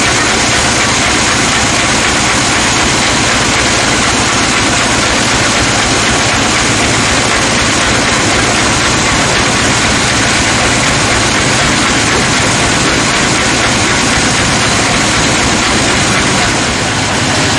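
Band sawmill machinery running steadily with a loud, constant mechanical drone and a low hum under it, the saw turning idle while a log is loaded onto the carriage.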